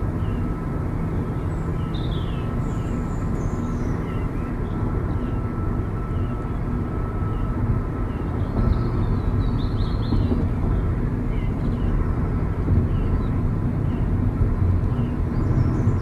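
Steady low rumble of a car's engine and tyres on the road, heard from inside the cabin while driving, with a faint steady hum and small high chirps now and then.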